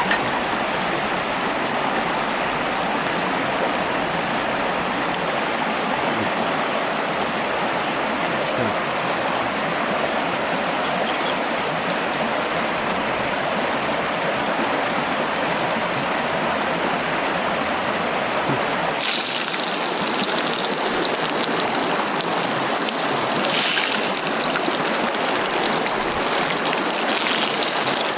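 Stream water flowing steadily. About two-thirds of the way in, the sound abruptly turns brighter and hissier.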